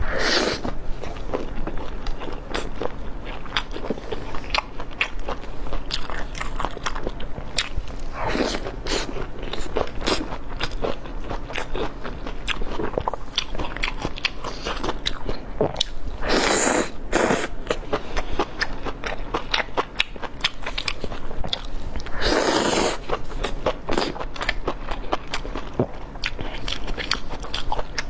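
Close-miked eating: a person biting and chewing food with steady crackling and crunching, and a few louder, longer crunches spread through.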